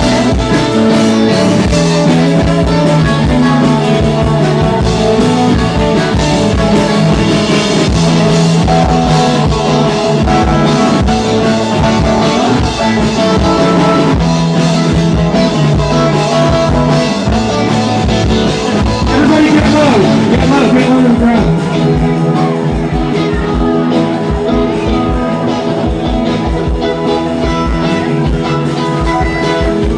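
A live rock band playing a guitar-led song over a steady beat. A run of bending guitar notes comes about two-thirds of the way through.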